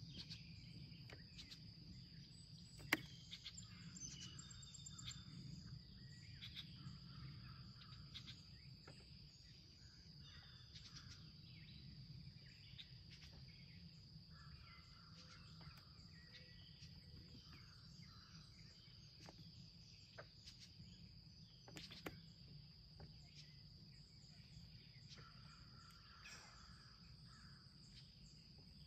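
Faint outdoor ambience: a steady high insect drone with scattered soft bird calls, and a sharp click about three seconds in and another around 22 seconds.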